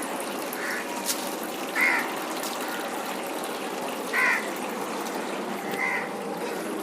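Steady running water, as a tank is refilled and plants are rinsed, with a bird giving four short calls, the loudest about two and four seconds in.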